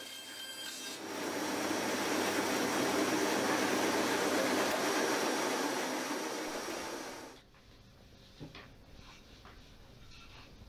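Bandsaw blade cutting through a pine board, a steady rasping saw noise that sets in about a second in and stops abruptly about seven seconds in. Afterwards only faint light taps.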